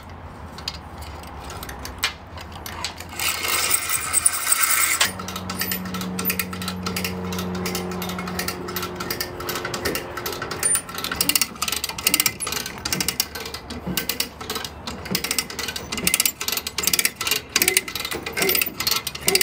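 Hand come-along being ratcheted, its pawl clicking in quick runs as it winches a boat hull up onto a trailer. The clicking grows denser in the second half, with a low steady hum for several seconds in the middle.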